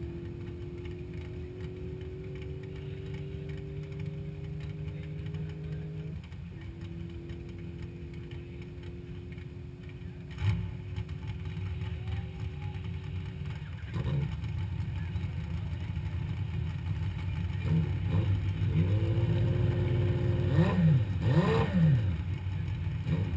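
Car engines idling in the staging lane as a steady low drone. There is a knock about ten seconds in and another a few seconds later. Near the end an engine is revved up and down several times in quick blips.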